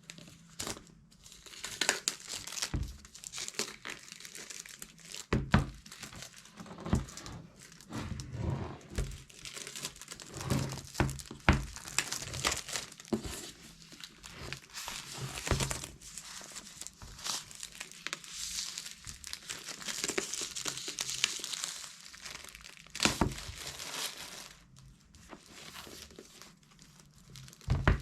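Plastic shrink-wrap being picked at with fingernails, torn and peeled off a product box, crinkling and crackling, with a few sharp knocks of the box being handled.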